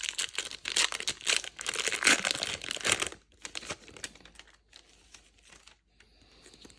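Foil booster-pack wrapper being torn open and crinkled in the hands, a dense crackle for about three seconds, then only faint rustles and clicks as the cards are handled.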